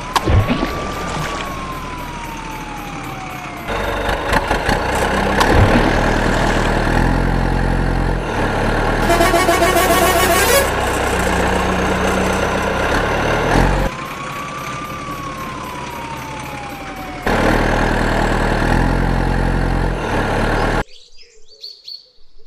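A siren wail, rising and then falling slowly, twice, over a heavy truck engine running and changing pitch in steps. Near the end it cuts off suddenly to a quiet background with bird chirps.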